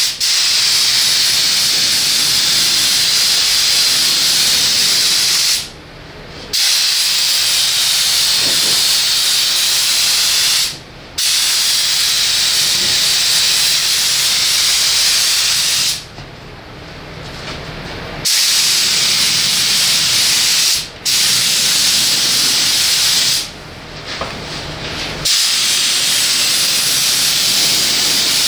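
Compressed-air paint spray gun hissing steadily as it sprays the colour coat, with five short breaks where the trigger is let go between passes.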